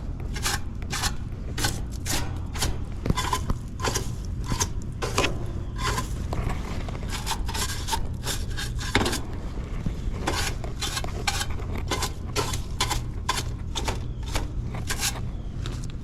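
Irregular clinking, tapping and scraping of hard objects being handled, a few sharp clicks a second, over a steady low rumble.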